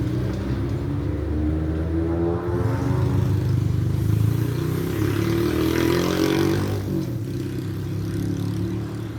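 Motor vehicle engine running close by, its pitch rising over several seconds and then dropping away about seven seconds in.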